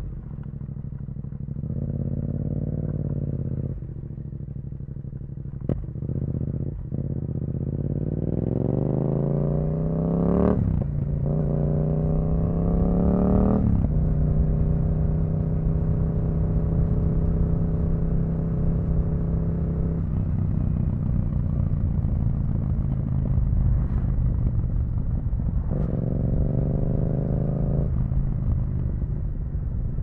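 Yamaha XSR700's CP2 parallel-twin engine through an Akrapovič exhaust with the dB killer removed, on the move. The revs climb with quick gear changes about ten and fourteen seconds in, then hold a steady cruise, with another short climb and shift near the end.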